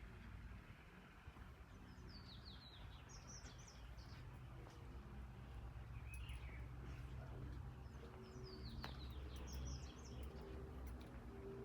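Small birds chirping faintly in a few short bursts of quick high notes, over a steady low background rumble.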